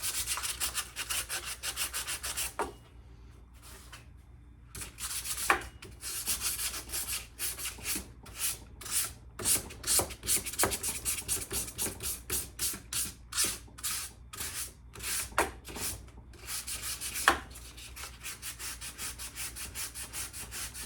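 Sandpaper rubbed back and forth over a rusty steel axe head in quick strokes, about two a second, with a short pause about three seconds in and a couple of sharp knocks.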